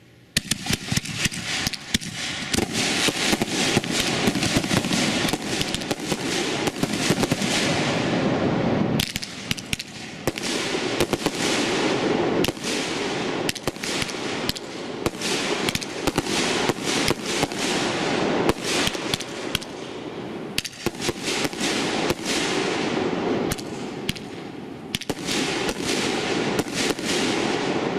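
Fireworks finale with a few Excalibur artillery shells in it, starting suddenly about half a second in. It goes off in a dense, continuous barrage of bangs and crackling that slackens briefly a few times.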